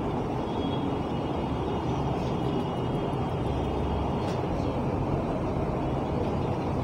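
Steady low background rumble with no speech, even in level throughout, with one faint click about four seconds in.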